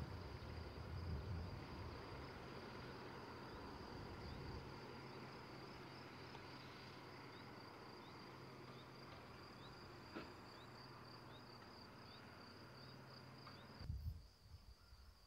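Crickets trilling steadily in one high, finely pulsing line, over a low rumble and hiss. Near the end there is a thump, after which the rumble and hiss drop away while the trilling goes on.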